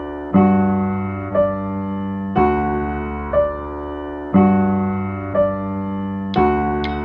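Background music: an electric piano plays slow, sustained chords, a new chord struck about every two seconds, with a lighter accent between. Sharper high percussive clicks come in near the end.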